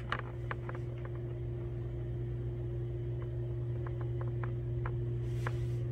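Steady low electrical or motor hum with a thin higher tone above it, and faint scattered ticks.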